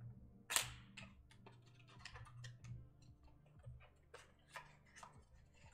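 Light clicks and taps of trading cards and plastic card holders being picked up and handled on a table, a dozen or more small ticks with a sharper click about half a second in.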